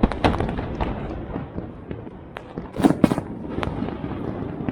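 Fireworks bursting: a string of irregular sharp bangs and crackles, loudest right at the start and in a pair about three seconds in.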